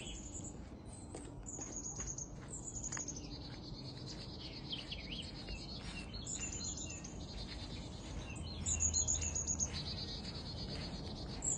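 Birds chirping in repeated high calls, with coyotes faintly screaming in the distance.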